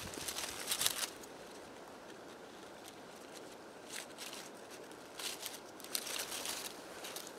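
Scissors cutting a sheet of leather in a few short snips in the second half, after rustling and crinkling as the leather is handled over dry leaves in the first second.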